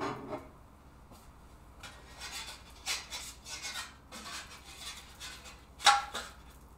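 Spatula scraping and sliding under an egg omelette in a frying pan: a run of short rasping strokes, then a sharp clack of a utensil against the pan about six seconds in.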